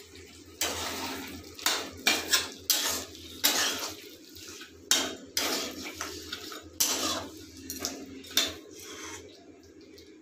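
Flat metal spatula scraping and stirring thick mutton curry in a metal kadai: a quick, irregular run of metal-on-metal scrapes and clanks, starting about half a second in and stopping about a second before the end, over a low steady hum.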